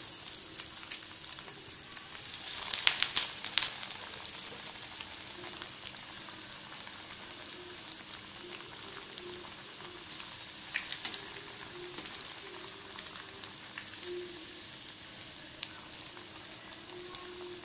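Breaded chicken cutlets deep-frying in hot oil in a kadai: a steady crackling sizzle that swells louder about three seconds in and again around eleven seconds.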